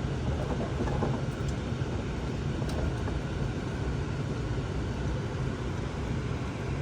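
Steady low rumble of a 2018 Honda Civic running at idle, with a few faint clicks.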